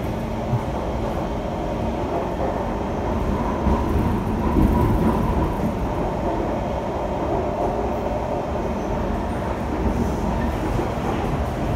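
Kawasaki C151 electric multiple unit train heard from inside the passenger car while running: a steady rumble of wheels on rail and running gear, with a faint steady tone over it. It swells a little about four seconds in.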